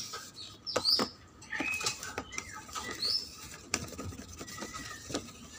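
Light clicks, knocks and scrapes of a hand handling clear plastic reptile tubs, with a few short bird chirps in the background.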